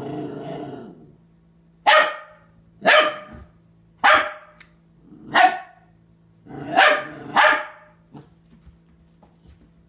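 Four-month-old Catahoula Leopard Dog puppy giving a low growl for about a second, then six sharp barks about a second apart, the last two close together, barking at her own reflection in a mirror.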